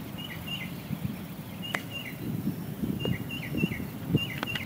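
Birds chirping in short, repeated calls over a steady low background rumble, with a sharp click about a second and a half in and another near the end.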